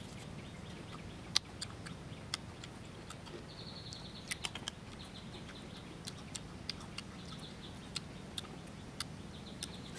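Chewing of crisp star fruit close to the microphone: irregular crunches and mouth clicks, with one louder click a little over a second in.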